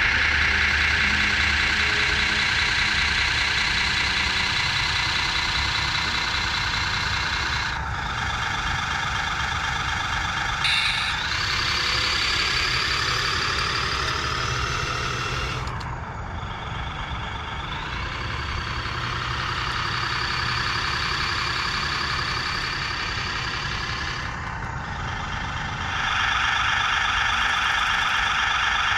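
Radio-controlled construction models running: a steady, loud mechanical hum that changes its pitch and strength several times, dipping briefly about a third and halfway through, then steadying again near the end.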